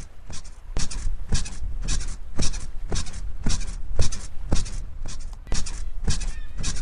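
Bed springs squeaking in a steady rhythm, about two squeaks a second, over a low steady rumble of ocean surf.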